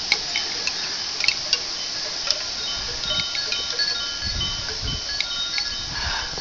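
Light chime tones ringing and overlapping over a steady hiss, with a few sharp clicks and some low rumbles in the middle.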